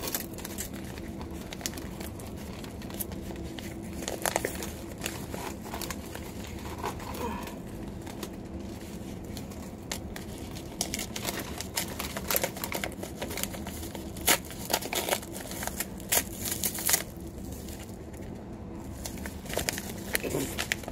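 Padded kraft bubble mailer being torn and pulled open: the paper and bubble lining crinkle and tear in quick irregular crackles, busiest in the middle stretch.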